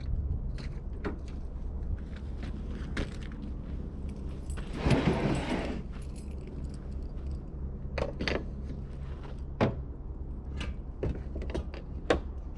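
Camping gear being handled at the back of a pickup truck: scattered clicks, knocks and clatter of items being moved and set down, with a longer sliding rustle about five seconds in.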